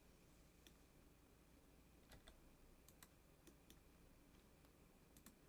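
Faint, scattered clicks of computer keys and a mouse, about eight light taps spread apart over near-silent room tone.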